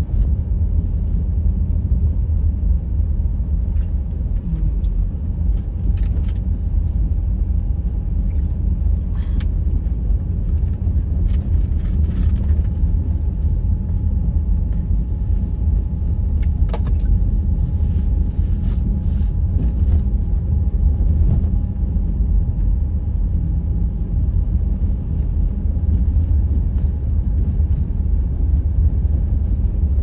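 Wind buffeting the microphone in a snowstorm: a loud, steady low rumble throughout, with a faint steady tone underneath and a few scattered faint clicks.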